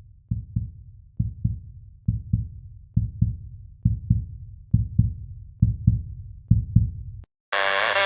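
Heartbeat sound: low double thumps in steady pairs, a little more than one pair a second. Music with a steady pitched tone cuts in abruptly near the end.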